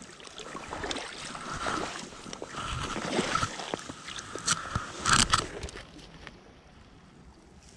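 A spinning reel being cranked and a hooked brown trout landed on the creek bank, splashing and flopping on dry leaves and gravel: rustling and scattered sharp knocks, loudest about five seconds in, then quieter.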